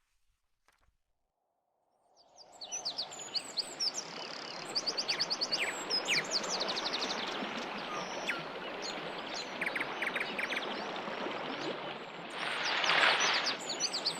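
Birds chirping and trilling, many quick calls and fast runs of notes, over a steady outdoor background hiss that starts about two seconds in. A louder rush of noise swells briefly near the end.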